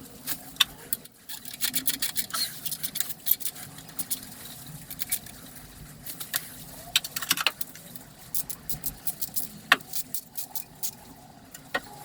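Irregular sharp clicks and light metallic clinks of hand tools and metal engine parts being handled, coming in quick clusters.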